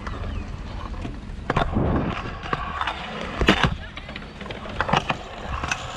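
Kick scooter's wheels rolling on concrete, a steady rumble with wind on the microphone, broken by several sharp clacks.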